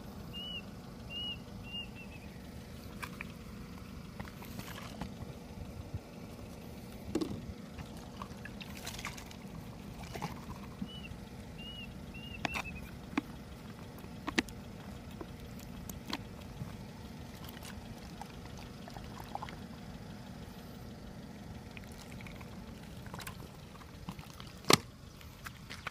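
Soft gurgling and trickling of soda running from a plastic bottle into a balloon stretched over its neck, over a steady low rumble, with scattered handling clicks and one sharp click near the end. Two short runs of high chirps sound, near the start and again about halfway.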